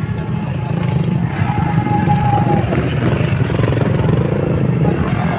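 Motocross dirt bike engines running and revving as the bikes ride past, their pitch rising and falling.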